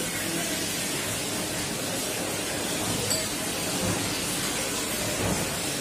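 Steady, even background hiss, with one faint small click about three seconds in.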